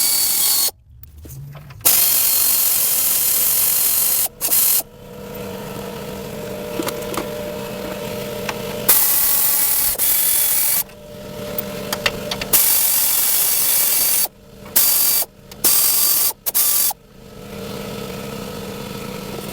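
A power tool run in several bursts of up to about two seconds each, stopping and starting abruptly, as the bolts holding the rear skid plate are backed out.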